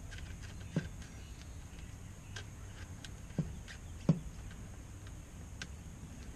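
A handful of short, sharp clicks and taps, the loudest about four seconds in, as hands work a fuel hose off its fitting on an outboard engine. A steady low hum runs underneath.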